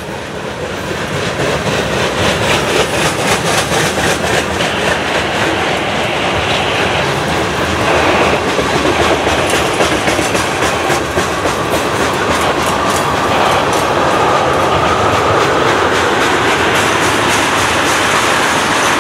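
Freight train cars (covered hoppers and tank cars) rolling past at track speed, their steel wheels clattering over the rail joints in a fast, even rhythm. A faint thin squeal joins about midway.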